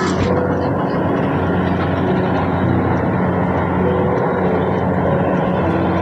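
Kubota DC70 rice combine harvester running steadily under load as it cuts and threshes: a continuous diesel engine drone with a broad mechanical rush over it.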